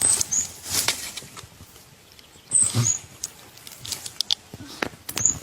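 Small animal calling with short, very high chirps in quick pairs, three times, amid light clicking and rustling.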